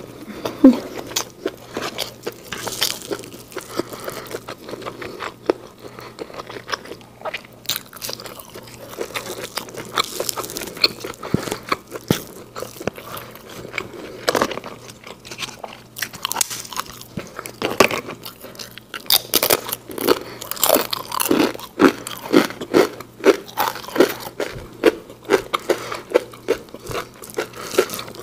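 Close-miked eating: a person chewing and crunching a mouthful of fried rice with fish balls and crisp fried sides. In the second half it settles into a steady run of chewing strokes, about two a second.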